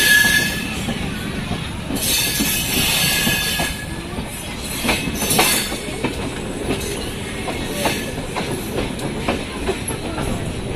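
Kamayani Express passenger train running, heard from on board: a steady rumble of wheels on rails, with a high wheel squeal at the start and again from about two seconds in. A few rail-joint clicks come later.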